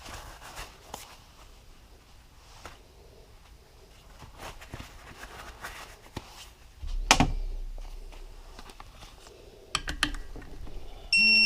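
Hand tools clicking and tapping on engine parts, with a heavy knock about seven seconds in and a quick run of ratchet clicks. Near the end comes one short, loud, high electronic beep: a digital torque wrench signalling that it has reached its set torque while a nut or bolt is tightened.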